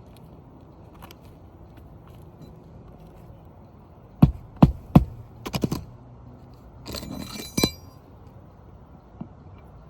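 Three sharp knocks in quick succession, a flurry of lighter knocks, then a metallic clinking scrape ending in a click, typical of hand tools being struck and handled during a roof shingle repair.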